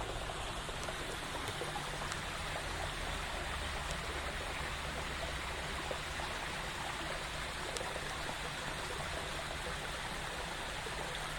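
Steady rushing of a flowing stream or brook, an even water noise that does not change.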